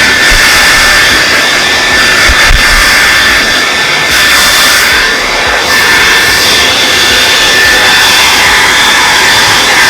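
TRESemme Smooth and Shine Power Dryer 2200 hair dryer running on its stronger setting: a loud, steady blowing hiss with a high fan whine, dipping slightly about halfway through as the dryer is moved.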